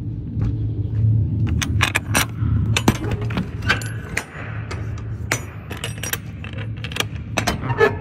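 Scattered metallic clicks and jingles as steel trailer door hardware is handled, over a steady low hum of an idling truck engine.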